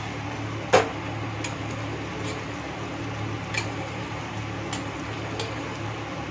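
Metal spoon stirring thick masala in a stainless-steel handi, clinking against the pot a handful of times, the loudest clink about a second in. A steady low hum runs underneath.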